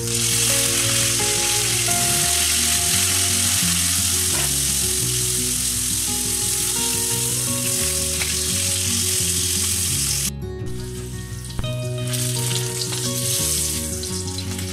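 Potatoes and raw papaya sizzling as they fry in hot oil in a wok. The sizzle begins with the window, breaks off suddenly about ten seconds in and starts again a couple of seconds later.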